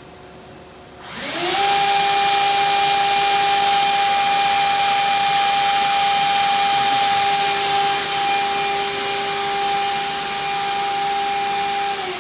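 Spindle of a Fanuc Robodrill α-D14LiB5 machining centre spinning up about a second in, running at speed with a steady high whine over a loud hiss, then winding down at the end.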